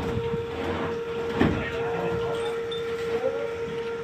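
Crane running during a heavy lift, giving a steady mid-pitched hum over a noisy machine drone, with one clank about a second and a half in.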